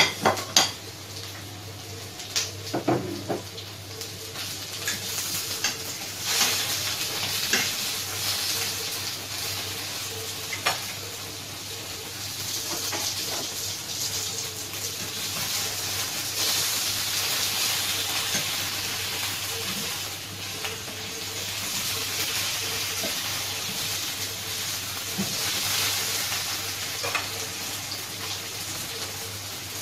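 Sliced potatoes shallow-frying in oil in a frying pan: a steady sizzle, with a few clicks of a utensil turning them.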